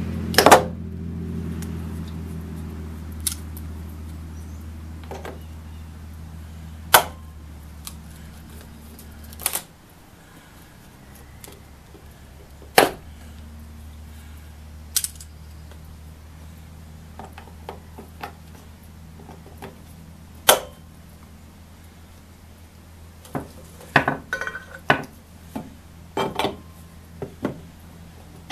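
Sharp metallic clicks and taps of hand tools working at a wooden window frame to pry out the nails holding the trim, scattered and then coming in a quick cluster near the end. Under them runs a steady low hum that drops out briefly about ten seconds in.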